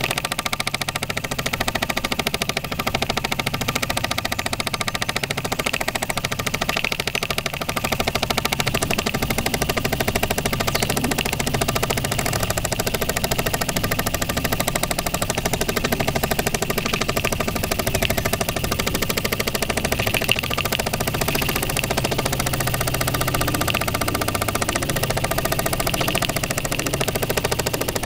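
Restored 1960s Mamod SE2 model steam engine running steadily under steam, its oscillating cylinder and spinning flywheel giving a rapid, even chuffing beat.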